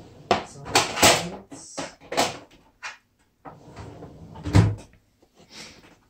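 A DOM RS8 metal lock cylinder and small parts being handled: a string of separate sharp clicks and knocks with some rubbing between them, the loudest knock about four and a half seconds in.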